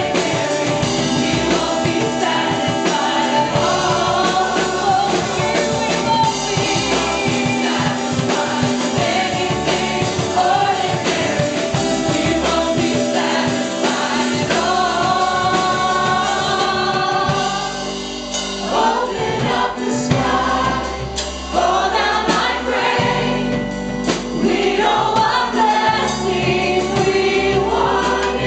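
Choir and congregation singing a gospel worship song over band accompaniment with a steady bass line.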